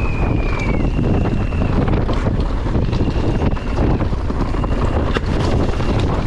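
Heavy wind buffeting the microphone on a downhill mountain bike run at speed, with sharp knocks from the bike over rough ground and a few brief high, steady whistling tones.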